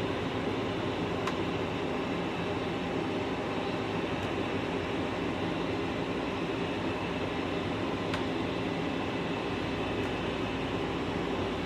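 Machinery running with a steady hum, broken only by a few faint clicks.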